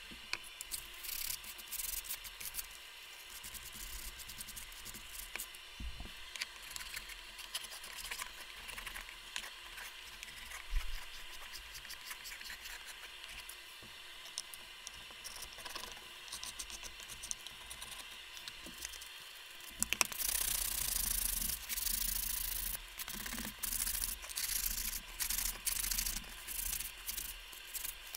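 Hand sanding with a folded sheet of sandpaper on a wooden casting pattern coated with body filler, smoothing it toward shape. Repeated rubbing strokes start about two-thirds of the way in; before that there are only faint scraping and handling sounds.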